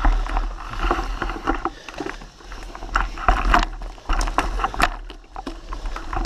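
Mountain bike rolling fast down a dirt trail: tyre noise on dirt and leaves with rattling from the bike, and sharp knocks over bumps, several in the second half.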